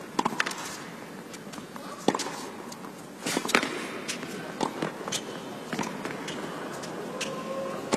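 Tennis rally on an indoor court: sharp racket strokes on the ball, about one every second or so, with ball bounces between them.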